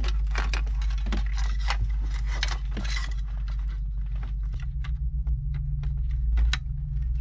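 Wiring harness cables and plastic plug connectors rattling and clicking as they are handled and plugged into the back of an aftermarket car radio head unit, over a steady low hum. The clicks come densely for about three seconds, then as a few separate clicks.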